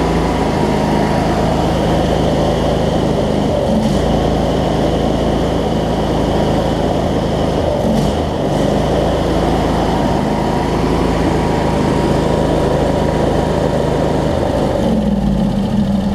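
A 25 hp Briggs & Stratton V-twin engine on a riding mower running steadily just after starting, its note changing near the end. The mower starts and runs but will not shut off from the switch, because the ground wire to the ignition coil is not connected.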